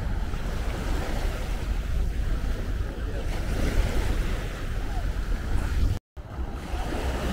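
Small waves washing onto a sandy beach, with wind buffeting the microphone in a low rumble. The sound cuts out for a split second near the end.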